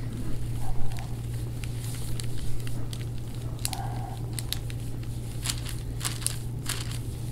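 Deep-tissue massage on a patient's back: scattered sharp clicks and crinkly rubbing sounds, thickest near the end, over a steady low hum.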